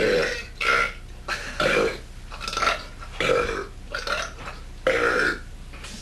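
Deliberate human burps in a rapid series, about eight short burps one after another, each a brief throaty belch.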